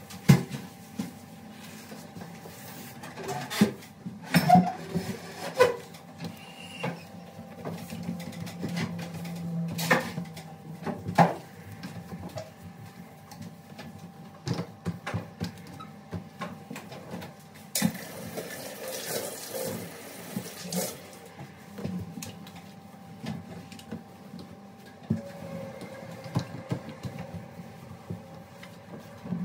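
Sponge and cloth wiping a glass-top gas hob and its tiled backsplash, with scattered knocks and clicks as things are moved about. A short burst of rushing noise comes about two-thirds of the way through.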